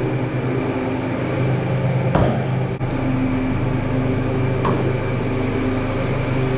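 A walk-in cooler's refrigeration unit running, its compressor and fan giving a loud, steady electrical hum. A few light clicks are heard, about two seconds in, near the middle and near the end.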